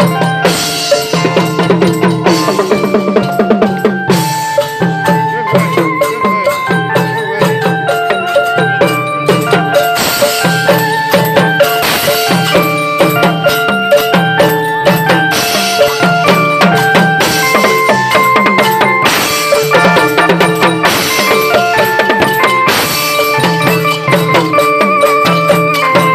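Thai traditional procession music: drums beating a steady rhythm with cymbal crashes, under a melody played over one long held drone note.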